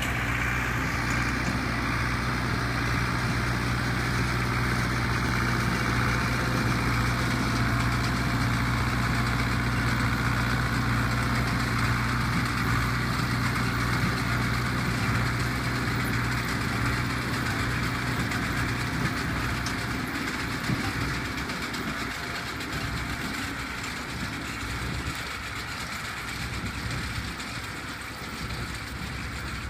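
Zetor 6718 tractor's diesel engine running steadily while driving a Bamford 59 Super baler. The engine's low drone weakens and the sound gets somewhat quieter after about 20 seconds.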